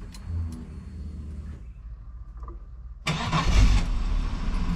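Holden Commodore engine cranking and firing about three seconds in, then running steadily on its newly fitted Walbro 460 fuel pump.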